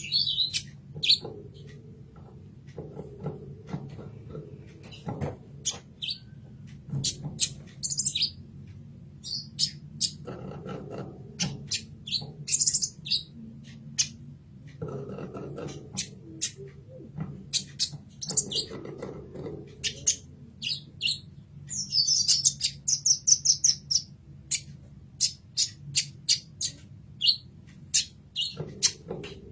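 Kolibri ninja sunbird singing: a long run of sharp, high chirps and short calls, with a fast rattling trill about two-thirds of the way through, over a steady low hum.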